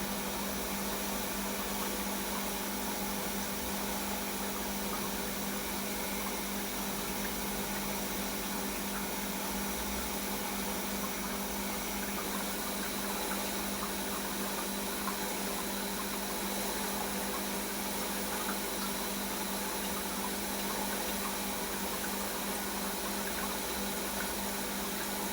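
Centrifugal mushroom-room humidifier running steadily, a constant hum with a hiss of water spray. It is running under its automatic humidity controller, switched on because the room's humidity is below the 80% set point.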